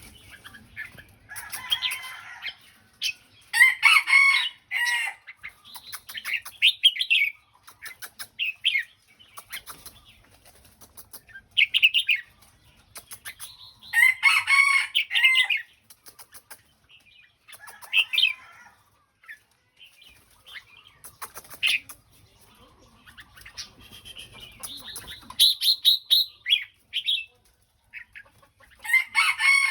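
Red-whiskered bulbul singing: short, bright song phrases repeated every few seconds, with the loudest, fullest phrases about four seconds in, around fourteen seconds in and near the end.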